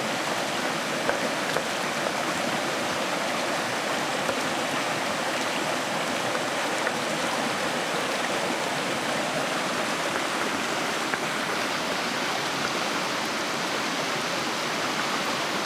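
Shallow river running over stones: a steady rushing of water, with a few faint knocks now and then.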